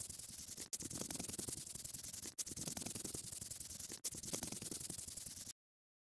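A scratchy rubbing sound effect of colouring in, played as a loop that repeats about every one and a half seconds with a brief break between repeats. It cuts off abruptly near the end.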